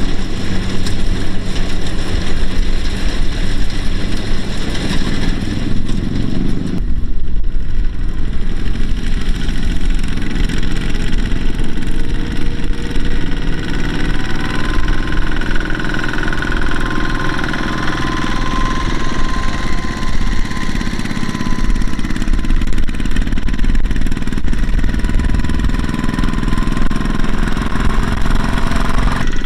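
A two-wheel walking tractor's single-cylinder diesel engine running steadily while pulling a trailer loaded with sacks of rice. Its sound changes abruptly about seven seconds in.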